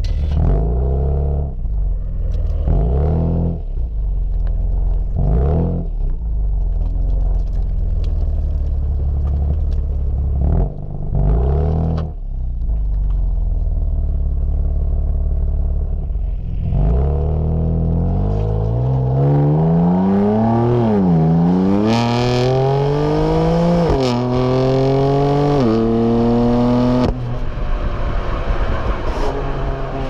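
BMW M4's twin-turbo straight-six engine revving in a series of short throttle blips over a rumbling idle, then accelerating hard through the gears: the pitch climbs and drops back at each of three upshifts.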